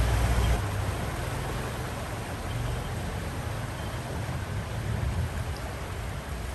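Steady hiss of heavy rain falling on a flooded street and its standing water, with a vehicle engine's low rumble that cuts off about half a second in.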